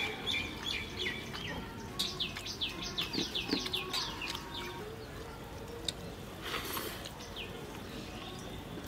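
Small birds chirping: scattered short calls, then a quick run of about ten falling chirps from about two to four seconds in. A brief rustle follows at about six and a half seconds.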